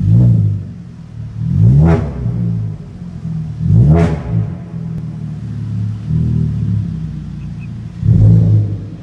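Alfa Romeo 147 Ti four-cylinder petrol engine breathing through a stainless 4-into-1 manifold, sports catalytic converter and stainless cat-back exhaust, blipped hard about four times and dropping straight back to idle between each rev.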